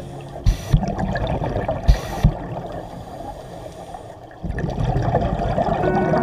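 Underwater sound of a scuba diver breathing through a regulator: two short hissing breaths with knocks in the first couple of seconds, then a louder rush of exhaled bubbles rumbling from about four seconds in.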